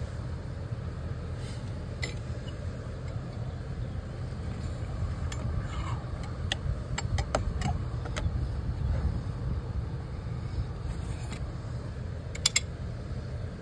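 Light clicks and taps of a new hose bib and its copper pipe being handled and slid into a hole in vinyl siding, clustered around the middle, over a steady low rumble. A sharp double click near the end is the loudest sound.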